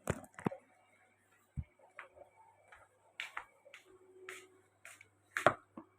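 Scattered short clicks and taps from handling things at close range, about a dozen, the loudest about five and a half seconds in.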